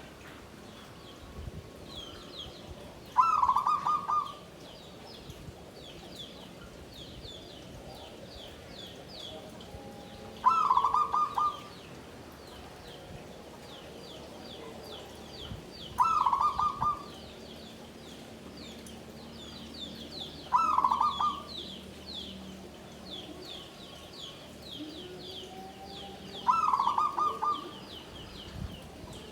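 Zebra dove (perkutut) cooing its song in five separate phrases, each about a second long and a few seconds apart, over steady faint high chirping of small birds.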